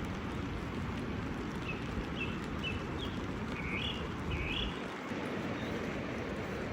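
Steady hiss of falling rain, with a bird giving about six short, high chirps in the middle.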